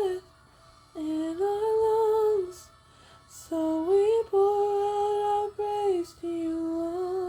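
A woman singing solo without accompaniment, slow long held notes in three phrases with short breaks between them, the last note held on into the end; no clear words, close to humming.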